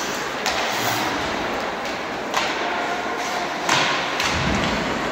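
Ice hockey in play: about four sharp knocks and thuds from sticks, puck and boards, the loudest a little under four seconds in, over a steady hiss of skates and rink noise.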